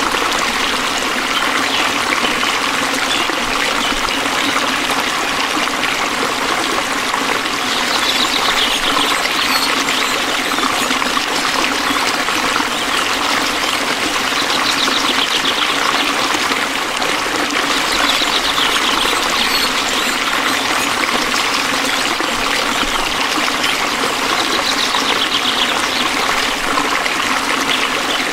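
Stream water trickling steadily under a constant night chorus of frogs and crickets. A short, rapidly pulsed high trill comes back every four to six seconds.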